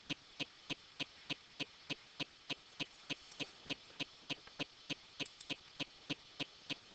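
Faint, even clicking, about three sharp clicks a second, like a fast mechanical tick.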